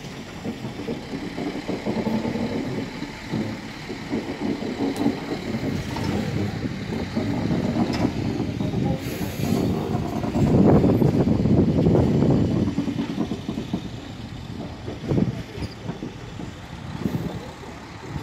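Two coupled diesel light-rail trains rolling past, one towing the other: engine running and wheels rumbling and clattering on the track. It swells to its loudest about ten to thirteen seconds in, then fades.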